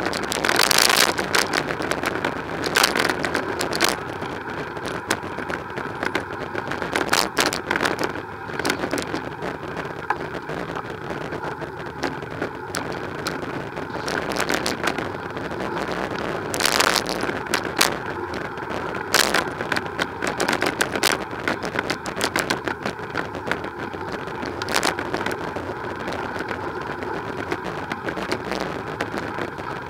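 Road traffic on a busy city street, cars and vans driving past, as heard from a bicycle riding alongside. Many short sharp knocks and clicks cut through it, the loudest about a second in and again about 17 seconds in.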